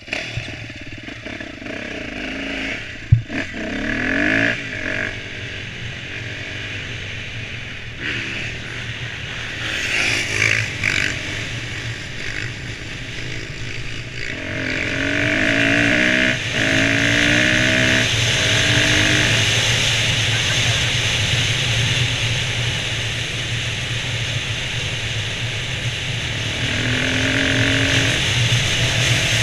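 Dirt bike engine pulling away and running up through the gears, its pitch rising and dropping back at each shift, with wind rushing over a helmet-mounted microphone. A single sharp knock about three seconds in.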